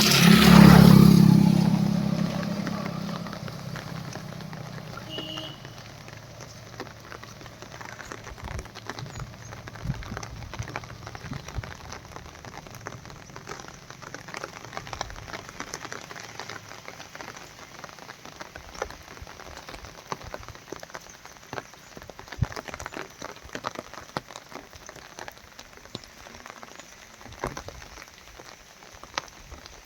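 Rain falling, many separate drops hitting a surface over a steady hiss. At the start a loud low rumble peaks about a second in and fades over the next few seconds.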